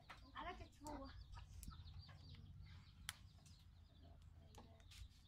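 Faint clucking of a chicken, a few short calls in the first second, then a few light clicks.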